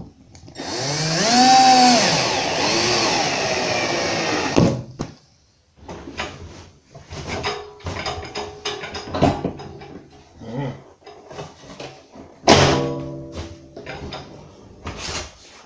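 Drill driver screwing on kitchen cabinet fittings: the motor runs for about four seconds, its pitch rising and falling with the trigger. This is followed by scattered clicks and knocks of fittings being handled, and a second short burst near the end.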